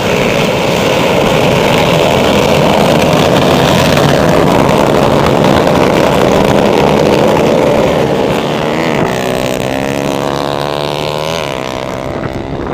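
125 cc four-stroke racing motorcycle engines running hard at full throttle, loud. About eight seconds in the sound thins to one clearer engine whose pitch rises and falls as it revs, growing a little quieter toward the end.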